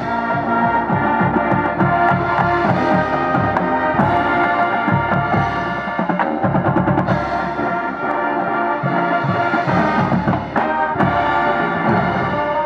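High school marching band playing: held chords from the winds over busy drum and front-ensemble percussion.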